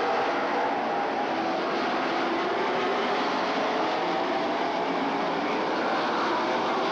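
A pack of short-track stock cars running at speed around an oval, their engines blending into one steady, loud drone whose pitch drifts slightly as the cars pass through the turns.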